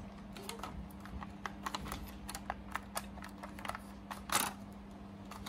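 Irregular light clicks and taps of hands handling plastic power tools and batteries, with one louder scrape about four seconds in, over a steady low hum.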